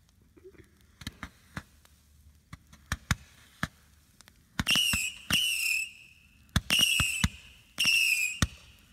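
Consumer fireworks going off: scattered small pops, then from about halfway four shrill whistles, each about half a second long, with sharp cracks between them.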